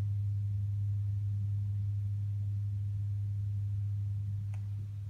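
A steady low hum on a single tone, easing off a little near the end.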